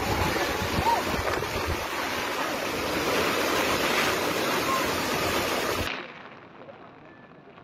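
Rushing floodwater from a swollen, fast-flowing river: a loud, steady rush with wind buffeting the microphone. About six seconds in the sound cuts to a much quieter, duller rush.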